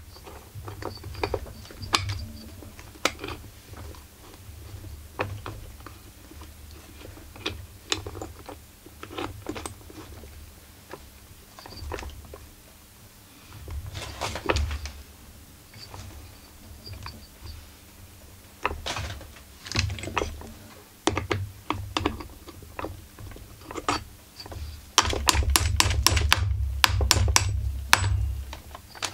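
Irregular metallic clicks and knocks of a wrench working on the flywheel nut of a Husqvarna 44 chainsaw. A quick run of clicks with handling rumble comes near the end.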